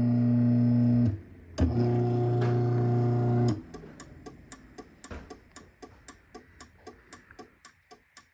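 Craftsman half-horsepower chain-drive garage door opener motor humming, stopping about a second in, then running again for about two seconds before shutting off. A string of quick faint ticks follows, about three or four a second.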